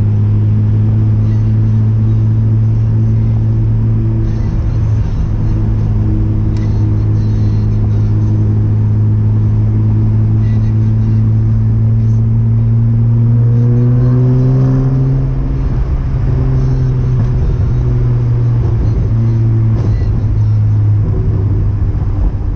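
Chevrolet Omega's naturally aspirated 3.0 12-valve C30NE inline-six running through a 2.5-inch exhaust with two sport mufflers, holding a steady note at cruise. About two-thirds of the way through, the pitch rises as the engine pulls harder, then drops back and settles again.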